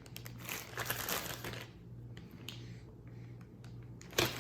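Plastic packaging crinkling as it is handled, with scattered clicks; louder over the first second and a half, then fainter, with a short sharp sound near the end.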